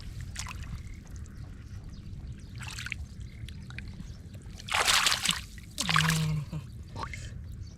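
Muddy water splashing and sloshing as hands work through the mud, with two louder splashes about five and six seconds in.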